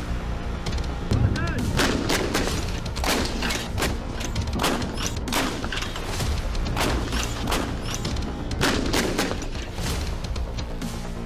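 Gunfire: many sharp shots in irregular quick succession, over background music.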